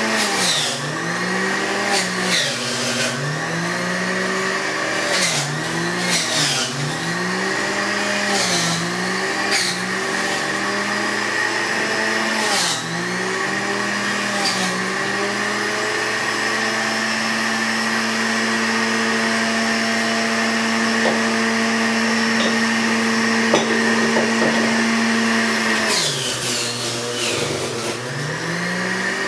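A household electric motor appliance runs continuously. Its pitch dips and recovers about every second or so for the first half, holds steady for about ten seconds, then dips again near the end, as if the load on the motor keeps changing.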